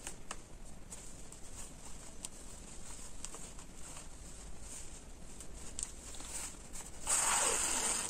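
Light dress fabric being handled and rustled by hand as a sleeve cap is eased along its gathering stitch, with a few faint ticks; a louder rustle for about a second near the end.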